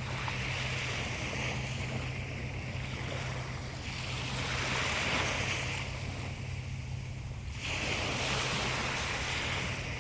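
Sea waves washing in, the surf noise swelling and ebbing in surges every few seconds, over a steady low hum.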